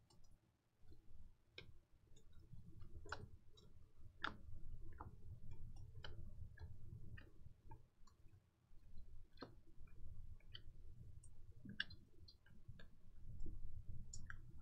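Faint, irregular clicks and ticks of Panini Prizm football cards being flipped through one at a time in the hands, each card's edge snapping as it is slid off the stack.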